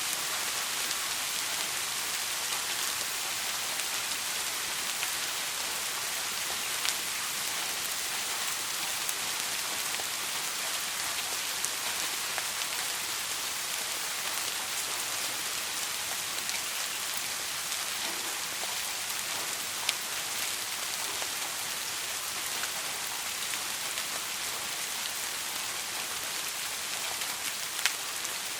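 Steady rain falling, a dense even hiss with occasional sharper individual drop ticks on a hard surface.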